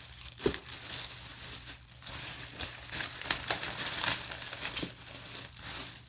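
Plastic packaging crinkling irregularly as it is handled, with a few sharper crackles.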